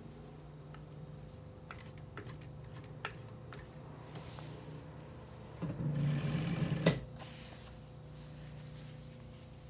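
Vintage Singer industrial sewing machine stitching the folded corner of a velvet panel: one burst of stitching lasting about a second, some six seconds in. Small clicks of the fabric being handled and a steady low hum sound around it.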